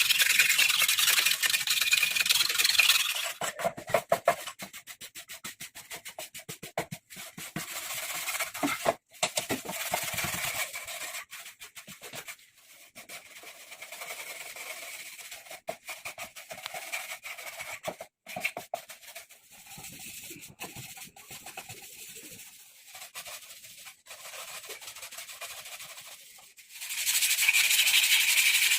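Sandpaper rubbed hard over metal motorcycle parts, stripping old paint and rust. Loud steady rasping at the start and again near the end, with a quieter stretch of short, broken scraping strokes in between.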